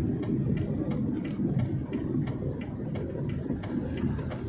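Vehicle cabin while driving: a steady low engine and road rumble, with a light clicking about two to three times a second.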